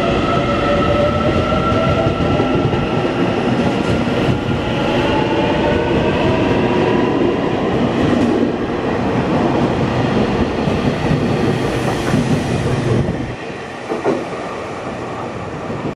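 EMU800 electric multiple unit accelerating away from the platform: the traction motors give a whine that rises in pitch over the wheel rumble and clickety-clack. The sound drops off about thirteen seconds in as the last car passes, and a single short knock follows.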